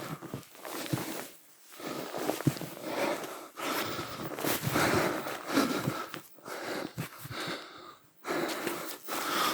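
A man breathing hard and wheezing in a series of heavy breaths while trudging through deep snow on snowshoes, with the noise of his steps in the snow.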